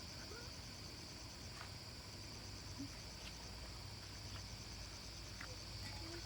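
Steady high-pitched insect chorus, a fine rapid shrilling that does not let up, with a few faint clicks.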